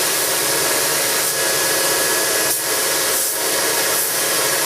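Burr King 760 three-wheel belt grinder running at speed while steel stock is ground against its contact wheel: a steady abrasive hiss with a brief dip about two and a half seconds in.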